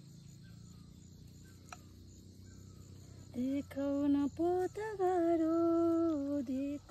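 A woman singing a short tune in long, steady held notes, starting a little over three seconds in, after a faint outdoor background.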